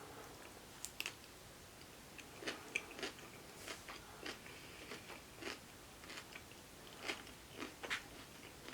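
Quiet close-up chewing of food, with a dozen or so soft, irregular crunches and mouth clicks.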